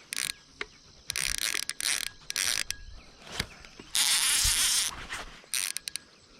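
Fishing reel's line-out clicker ratcheting in irregular bursts as a hooked fish pulls line off the spool, the longest run lasting about a second, about four seconds in.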